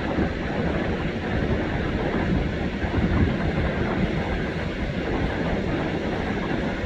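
UH-60 Black Hawk helicopter rotor and engine noise: a dense, steady, rough rumble.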